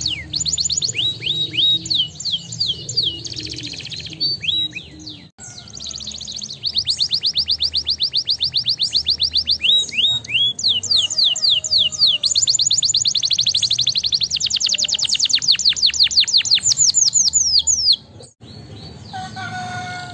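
Domestic canary singing: fast trills of rapidly repeated falling notes, with long rolling trills in the middle of the song. The song breaks off near the end.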